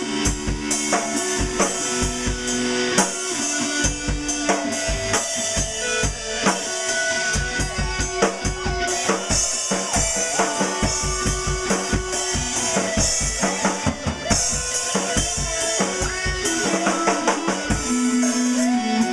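Band music: a drum kit keeping a steady beat with kick drum and snare, over held guitar and bass notes.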